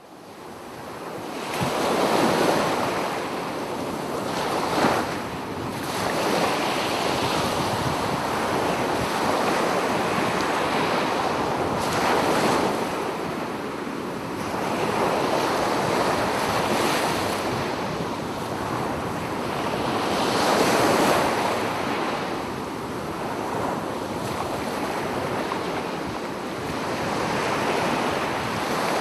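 Sea waves breaking and washing up the beach, surging louder every few seconds, with wind buffeting the microphone.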